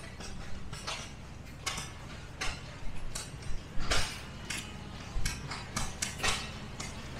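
Antique stationary gas engines running: sharp metallic clicks and knocks at an uneven pace over a low rumble.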